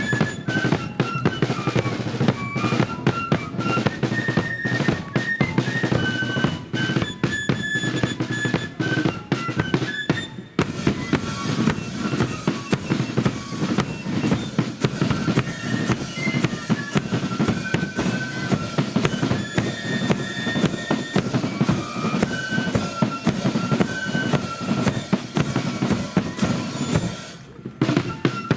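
Marching flute band playing a tune over snare and bass drums. The melody line sits high above dense, rapid drumming, and there is a brief lull near the end.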